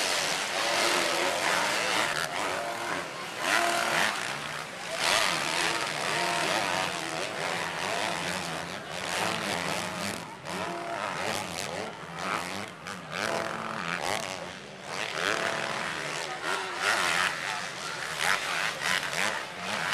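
Motocross bike engines racing on a dirt track, their pitch rising and falling as riders open and close the throttle, over a crowd of spectators talking.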